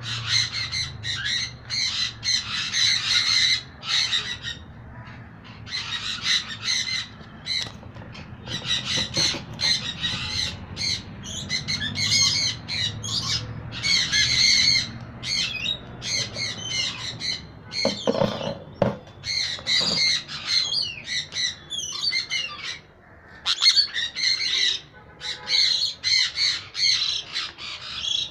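Pied yellow sun conure screeching, harsh calls repeated in bouts of a second or two with short pauses between.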